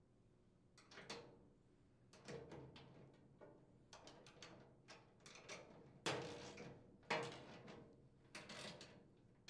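Faint metallic clicks and scrapes of a hand wrench turning a nut onto the chute hinge bolt of a chipper shredder. The strokes come one at a time, roughly a second apart, and the loudest two fall about six and seven seconds in.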